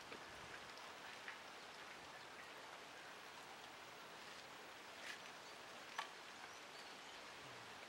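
Quiet outdoor hiss broken by a few faint taps and knocks from wooden sticks lifting baked clay lumps out of the embers; the sharpest knock comes about six seconds in.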